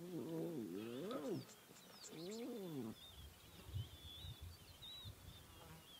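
Lion cubs mewing: two drawn-out calls, each rising then falling in pitch, the second about a second after the first. Faint high bird chirps follow in the second half.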